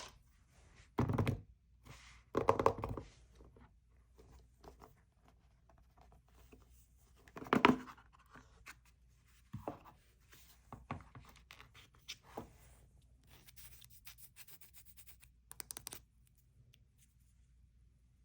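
Apple Watch cardboard packaging being handled: a few dull thumps of the box about one, two and a half and seven and a half seconds in, with light scraping between them. Near the end comes a crisp rustle of the wrapping lasting two or three seconds.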